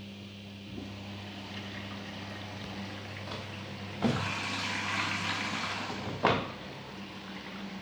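Daewoo DWD-FT1013 washing machine with a steady low hum; about four seconds in a clunk, then water rushes into the drum for about two seconds and stops with another clunk, as the machine fills for the rinse.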